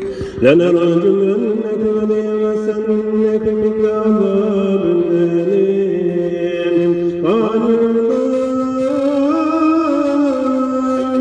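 A voice chanting in a melismatic Middle Eastern style, holding long notes and sliding between pitches with wavering ornaments. A new phrase begins just after the start and another about seven seconds in.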